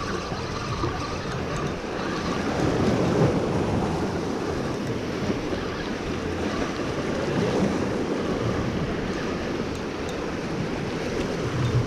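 Sea surf washing and breaking over jetty rocks, a steady rushing, with wind buffeting the microphone.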